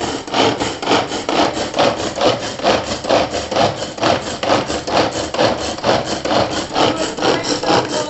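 Plastic pull-string mini chopper worked rapidly by hand, its cord rasping out and rewinding about three times a second as the blades spin round and chop the onion inside.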